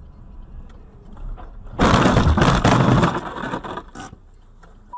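Vehicle collision with a sliding semi-truck: a sudden loud crash of crunching and scraping about two seconds in, lasting about a second and a half and tapering off as snow and debris hit the windshield.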